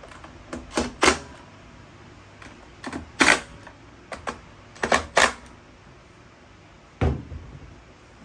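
Sharp clicks and clacks of parts and tools being handled while a string trimmer is reassembled: several separate knocks spread over the seconds, the loudest about a second in, around three seconds in and around five seconds in.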